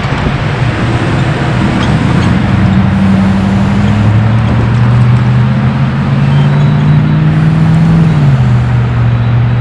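Diesel freight locomotives working hard up a grade: a loud, steady low engine drone over a wide hiss, its pitch shifting a few times and stepping down near the end.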